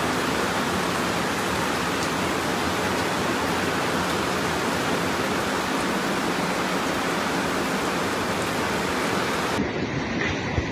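Steady, even rush of water in a typhoon flood, from heavy rain and a swollen, fast-flowing river. About a second before the end it cuts to a thinner rush with a few small knocks.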